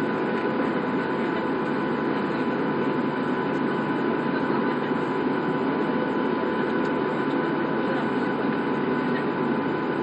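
Steady cabin noise inside a Boeing 737 taxiing: the engines run at low taxi power under a broad, even hum, with a thin steady whine on top.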